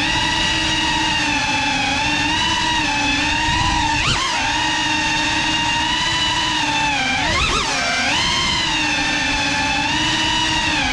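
Geprc Cinelog 35 cinewhoop FPV drone's brushless motors and ducted propellers buzzing steadily in flight, the pitch wavering with the throttle. It dips and swings back up briefly about four seconds in, and again more widely about seven and a half seconds in.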